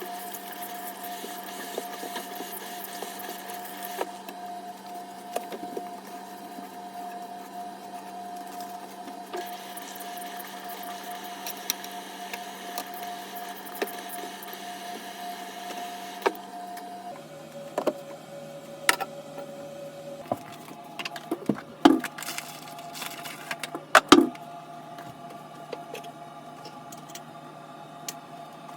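Household cleaning sounds: scattered knocks and clatter of objects being handled over a steady background hum. The knocks grow more frequent and louder in the second half.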